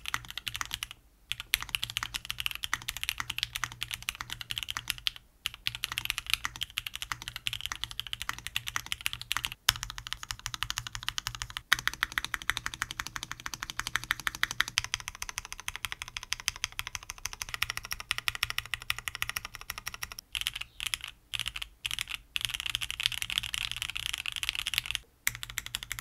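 Typing on a Jamesdonkey RS2 3.0 gasket-mounted mechanical keyboard in stock form, with factory-lubed Gateron G-Pro Silver linear switches, an FR4 plate, foam dampening and PBT keycaps: quick, steady keystrokes with a few short pauses. The typing sound is clean, poppy and not too loud.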